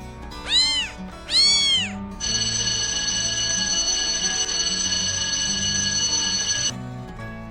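A domestic cat meowing twice, each call rising then falling in pitch. A steady high electronic tone follows for about four seconds, over background music.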